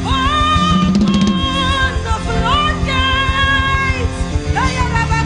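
Gospel song: a singer slides up into long held notes three times, over a band with a steady beat.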